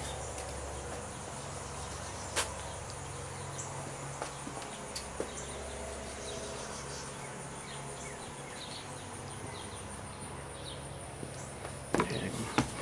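Steady high-pitched drone of insects, with a few light clicks. About twelve seconds in come footsteps on wooden deck boards, the loudest sounds.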